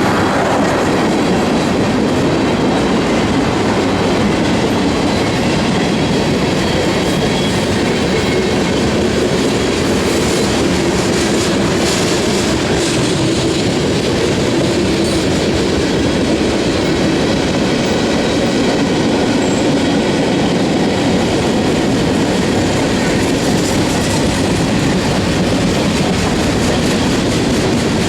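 A CSX freight train's cars rolling past at steady speed, a loud continuous sound of steel wheels on the rails.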